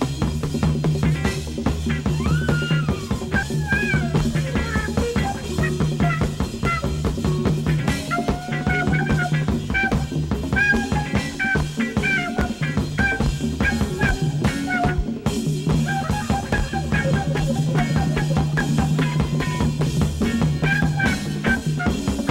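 Electric jazz-rock band playing live: a trumpet line weaves over a busy drum kit and a steady bass groove.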